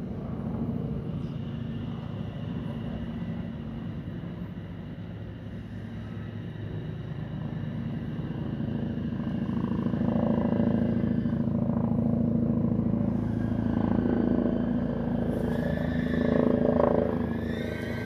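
A vehicle engine running with a steady low hum, growing louder about halfway through; near the end, higher tones rising in pitch join in.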